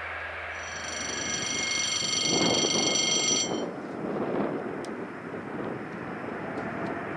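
Train horn sounding one steady note for about three seconds and stopping abruptly, over a steady rushing noise.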